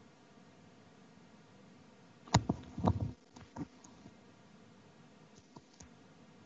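Quiet line noise for about two seconds, then a cluster of sharp knocks and rubbing from a headset's boom microphone being handled and adjusted, followed by a few small ticks.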